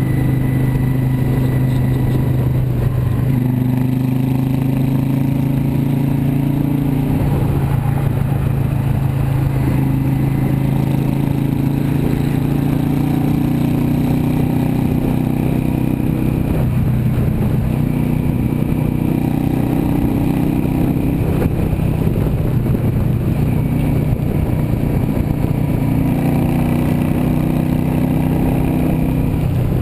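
Yamaha V-Star 650 Custom's V-twin engine running steadily at highway cruising speed, its pitch shifting slightly a few times with small throttle changes.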